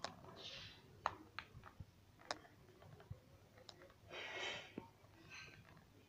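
Ringneck parakeet's beak clicking and tapping on a small plastic case: faint, irregular sharp clicks, with a couple of soft rustling hisses, one near the start and a longer one about four seconds in.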